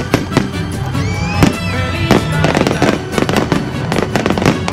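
Fireworks going off in rapid succession, many sharp bangs close together, with music playing underneath.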